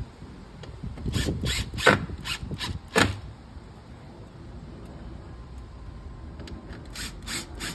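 Cordless drill driving screws into the storm door's frame in short trigger bursts: a run of quick bursts about a second in, the loudest two about a second apart, then another run near the end.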